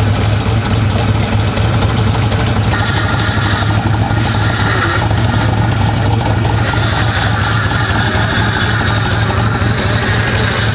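Off-road race truck's engine idling steadily with a deep, even hum. It is kept running while the power steering, which lost its fluid through a blown steering-box seal, is refilled and cycled to work the air out.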